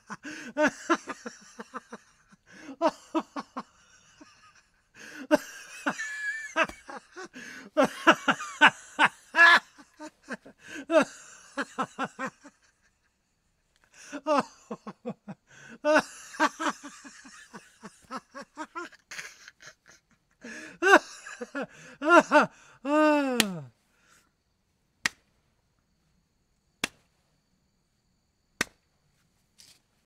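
A man laughing loudly in repeated bursts of rapid "ha-ha" pulses with short pauses between them, ending after a little over twenty seconds in one long laugh that falls in pitch. A few sharp single clicks follow, about two seconds apart.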